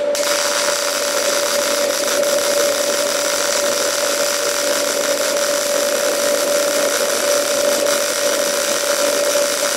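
Electric welding arc burning steadily: a loud, even hiss with a steady hum running through it.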